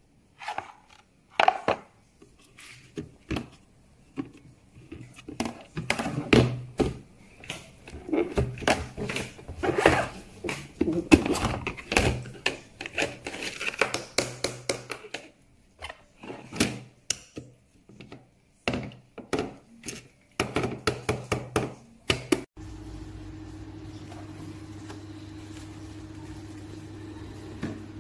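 Hard plastic parts of a knife and cutlery storage rack being handled, giving irregular knocks, clicks and rattles. Toward the end this cuts off abruptly and a steady low hum takes over.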